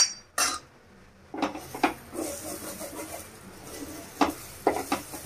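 Wooden spatula scraping and stirring beaten egg across a flat pan, scrambling it into egg bhurji, with irregular taps of the spatula against the pan and a faint sizzle. A sharp metallic clink sounds right at the start.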